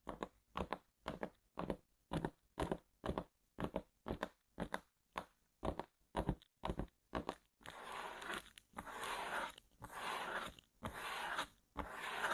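Fingers tapping on a cardboard box, about three sharp taps a second, then, about halfway through, slower scratching strokes across its surface.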